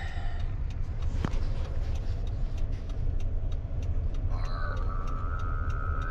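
Pickup truck driving, a steady low engine and road rumble. From about four seconds in, a steady high tone joins it.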